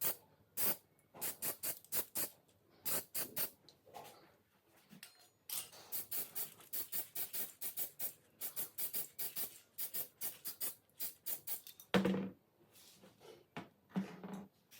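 Quick repeated hand rubbing strokes on a metal pistol part, about four to five strokes a second in bursts with short pauses. There are two louder knocks near the end.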